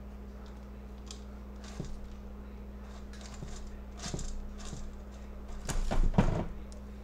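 A stainless steel bowl clattering as it is set down on the stovetop, a quick run of sharp metallic knocks about six seconds in, after a few lighter knocks earlier. A steady low hum runs underneath.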